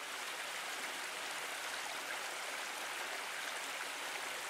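Steady rushing of running water, an even hiss with no breaks.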